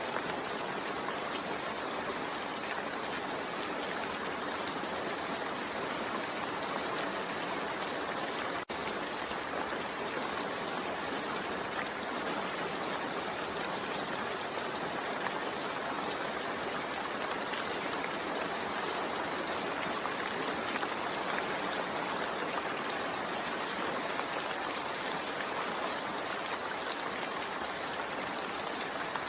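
Steady rain falling, an even hiss with no single drops standing out, broken for an instant about nine seconds in.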